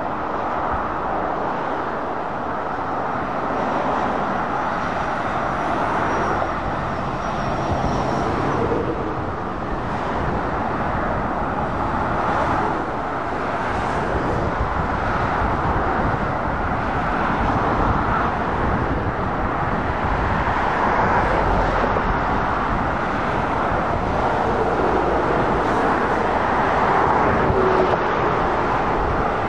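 Steady road traffic noise from lorries and cars passing on a dual carriageway: tyre roar mixed with engine noise, getting a little louder toward the end.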